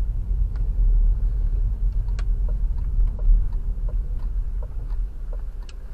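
Car driving, heard from inside the cabin: a steady low road and engine rumble with a few faint clicks.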